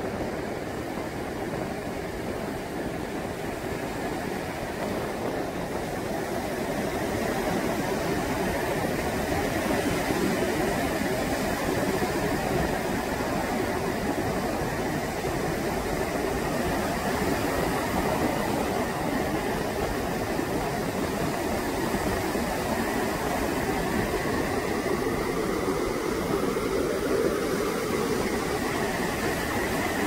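Gulf of Mexico surf breaking and washing up a flat sandy beach: a steady rushing of waves with no distinct single crashes, growing louder about seven seconds in.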